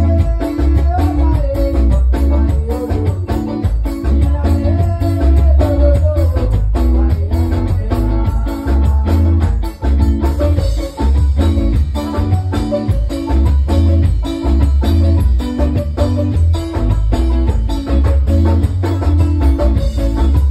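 Live band playing with electric bass, keyboard and electric guitar over a steady percussive rhythm. A melody line rises and falls over roughly the first six seconds, then the instruments carry on alone.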